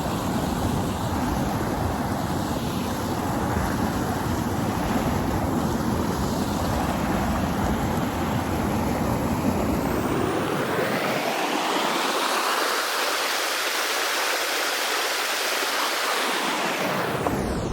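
Steady rushing of a small waterfall's running water. About ten seconds in, the sound thins and brightens as its low rumble fades away.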